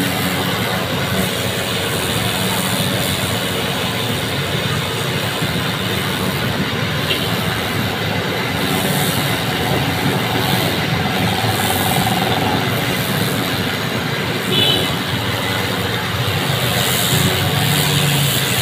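High-pressure water jet hissing steadily as it blasts wet concrete church steps, with an engine running steadily underneath.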